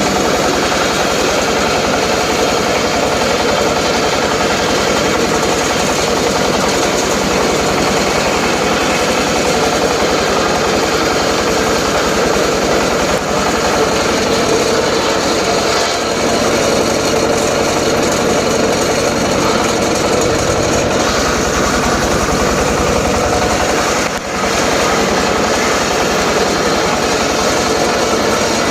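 Homemade circular saw running steadily, its blade ripping through teak, with a strong steady whine and two brief dips in level, about 13 and 24 seconds in.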